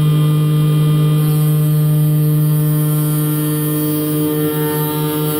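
Condor XC-007 Master Mini key cutting machine running its cutter motor while it mills a key blade: a steady hum with a hiss above it. About four seconds in the hum starts to pulse about three times a second.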